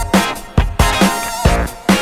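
Background music: an electronic, funky track with a steady drum beat.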